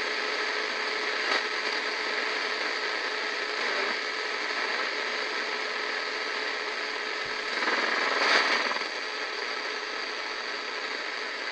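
Shortwave static hissing from an Eton FR-250 radio's speaker as it is tuned between stations, with a faint steady whistle underneath and a swell of noise about eight seconds in.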